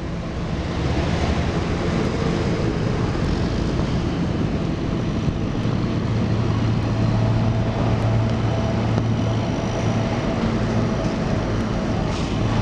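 Steady engine rumble with a low hum that grows stronger about halfway through, and a faint steady higher tone for a few seconds near the end.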